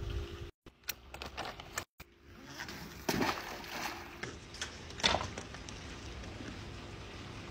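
Pool water splashing and gurgling as a vacuum hose is filled and pushed down into the pool, with a couple of sharper splashes about three and five seconds in.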